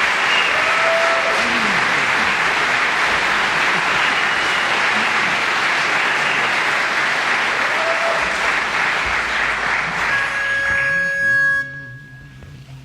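Audience applauding and cheering at the end of a barbershop quartet's song. The applause dies away about eleven and a half seconds in, as a brief steady tone sounds.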